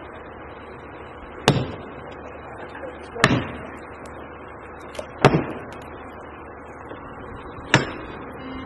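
Axe striking the bark of a large sugar pine trunk: four sharp chops about two seconds apart.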